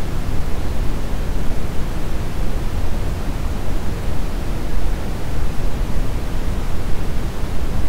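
Brown noise: a steady, deep hiss, strongest in the bass and falling off toward the treble, with no changes or events.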